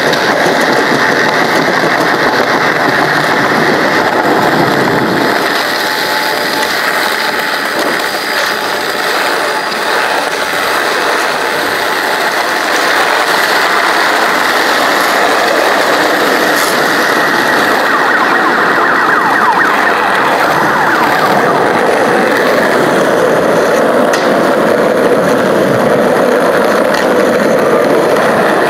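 Skateboard wheels rolling over concrete sidewalk paving: a loud, steady rolling noise.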